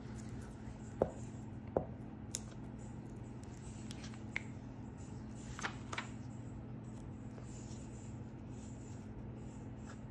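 Hands handling and laying down paper pieces on a cutting mat: a few light taps and paper rustles in the first several seconds, over a faint steady low hum.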